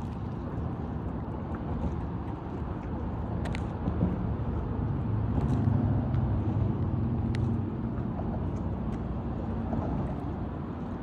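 Low rumble of a distant motor, swelling a little around the middle and then easing off.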